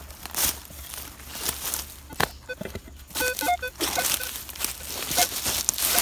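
A shovel blade is stamped and pushed into soil under dry leaf litter, giving repeated crunching and scraping of leaves and earth.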